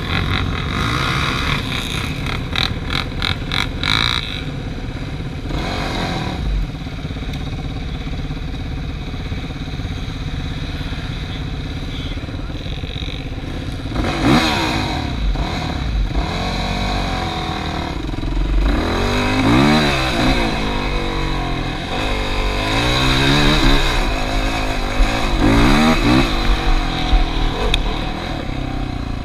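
ATV engine running under way off-road, revved up and back down several times in the second half. A quick run of rattling knocks sounds in the first few seconds.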